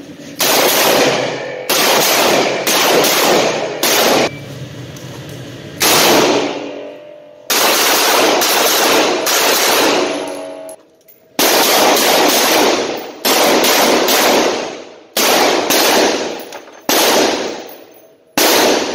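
A string of about fifteen revolver shots, some in quick pairs and some a second or two apart. Each shot rings and echoes off the walls of an indoor range.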